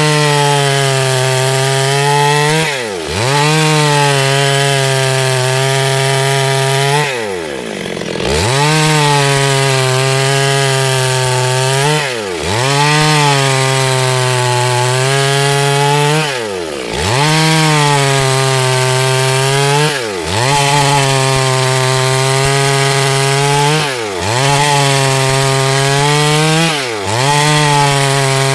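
Chainsaw running at high revs, cutting wood into boards. Its engine pitch drops briefly and climbs back about every four seconds.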